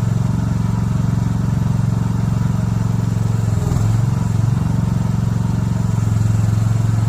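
Small engine of a mini excavator running steadily at working speed, its pitch dipping briefly about halfway through before it recovers.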